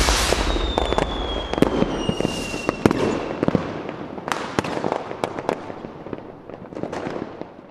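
Fireworks crackling and popping, with falling whistles in the first few seconds. The crackles thin out and fade away.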